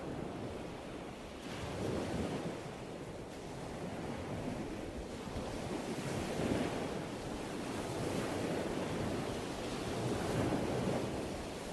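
Ocean surf breaking on a shore, the rush of water swelling three times as waves wash in.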